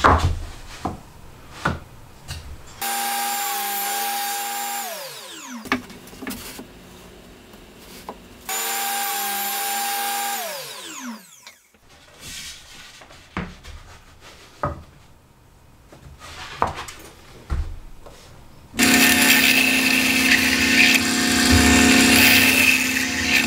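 Table saw running twice for about three seconds each, its pitch falling as the blade spins down after each run, with wood knocks and sliding in between. About 19 seconds in, a drill press starts and runs steadily.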